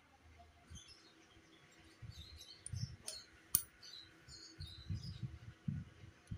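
Faint handling noise as a Brembo RCS brake master cylinder is fitted to a motorcycle handlebar: soft low knocks in clusters and one sharp click about three and a half seconds in. Short high chirps are scattered throughout.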